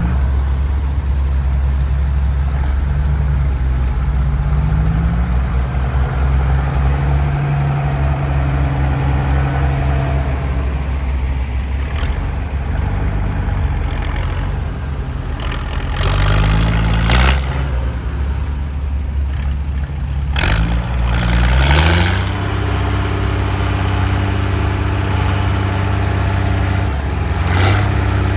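Straight-piped exhaust of a Case 1056XL tractor's six-cylinder diesel, pulling hard under ploughing load. The revs climb about halfway through, climb again a few seconds later, and then hold steady at a higher pitch.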